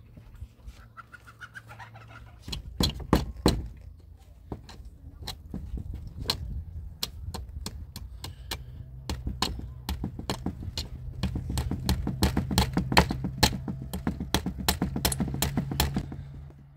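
A run of sharp knocks and clicks as a steel rebar rod is worked against a wooden tree pole. The knocks are scattered at first, with a few loud ones about three seconds in, then settle into a fairly regular beat of about three a second. A low steady hum runs underneath.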